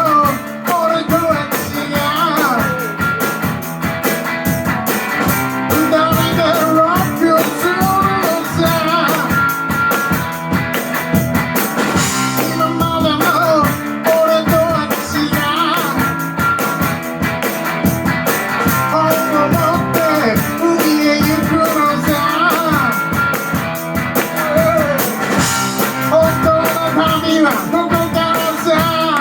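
Live rock and roll band playing: a drum kit keeping a fast, steady beat under guitar.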